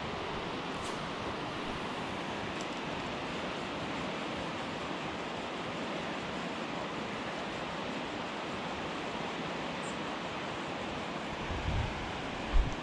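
Steady rushing of a river running high after heavy rain, an even hiss of moving water. A couple of low thumps come near the end.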